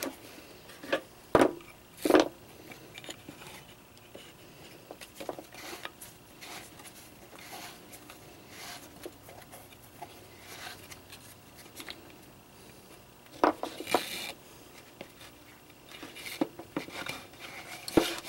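Parts of an Arctic Cat 250 ATV's recoil starter clicking and clacking as they are handled and seated in the housing, mostly quiet handling with sharp knocks about a second and a half and two seconds in, a louder pair of clacks around fourteen seconds, and more clicks near the end.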